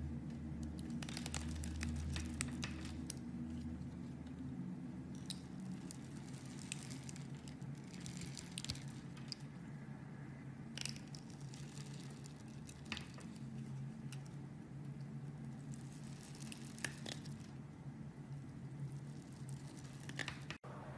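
A blade cutting into bar soap: irregular crisp scrapes and crunches over a steady low hum, with the sound dropping out for an instant near the end.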